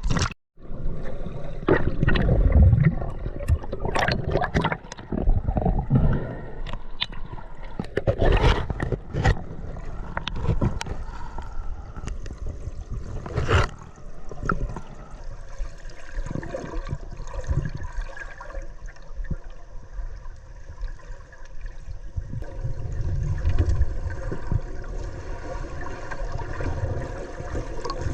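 River current rushing and gurgling around the camera as a diver swims the run, with scattered sharp clicks and knocks, the loudest about four, eight and thirteen seconds in.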